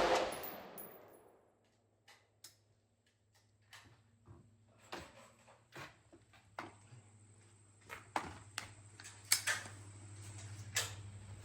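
The echo of a 5.56 AR-15 rifle shot fades over the first second. Then come scattered, much quieter sharp cracks of gunfire at irregular spacing, the strongest about nine seconds in.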